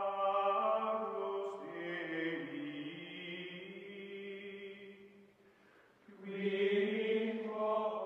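Background music of voices chanting long held notes in a slow drone. It fades away about five seconds in and swells back about a second later.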